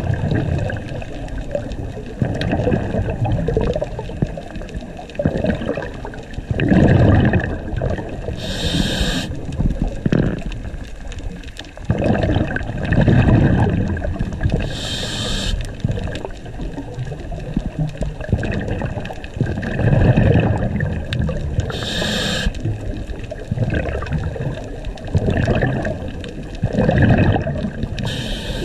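Scuba diver breathing through a regulator underwater: a short hiss of inhalation four times, about every six to seven seconds, alternating with longer bubbling rumbles of exhaled air.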